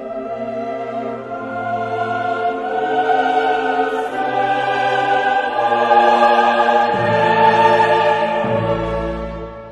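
Slow classical music with choir and orchestra: long sustained notes that swell louder and then fade away near the end.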